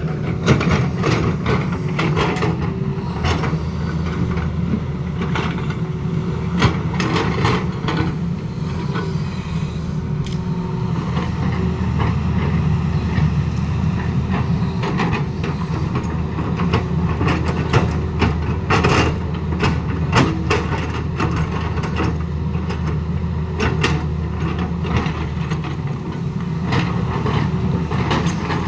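Tata Hitachi crawler excavator's diesel engine running steadily under working load, with frequent irregular knocks and clatter of the steel bucket scraping soil and striking rocks while levelling a road bed.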